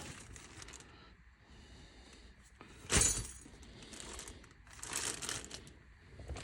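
Plastic parts being handled: a sharp plastic knock about three seconds in, then brief crinkling rustles.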